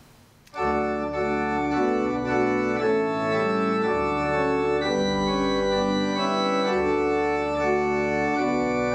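Organ playing slow, full sustained chords over a deep pedal bass, coming in about half a second in.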